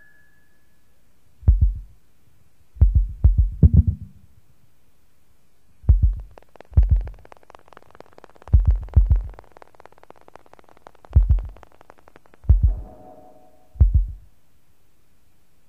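Noise music played from a cassette tape: irregular low, muffled thumps, some single and some in quick clusters of three or four, over a quiet background. A faint crackling haze runs through the middle, and a brief held tone sounds near the end.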